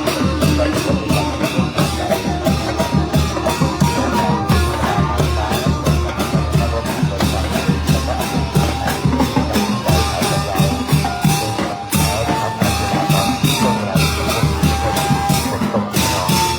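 Thai brass band (trae wong) playing lively procession music: drum kit and bass drum keep a steady, fast beat under held melody notes from the horns.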